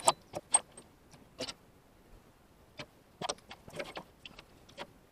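Irregular light metallic clicks and clinks of hand tools and small metal parts being handled, the sharpest just after the start.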